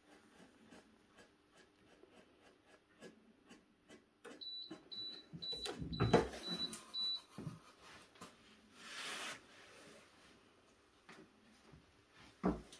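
Singer ESP260T steam press beeping six short high beeps, about two a second, with a loud clunk about six seconds in as its lid is pressed down onto the plate. A hiss of steam lasting about a second follows a few seconds later, and there is a knock near the end.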